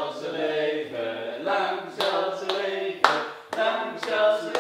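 A few voices singing a birthday song together, unaccompanied, with hand claps in time about twice a second from about two seconds in.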